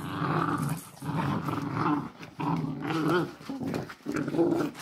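Puppies play-growling while wrestling over a toy, in about four short, low bouts of growling.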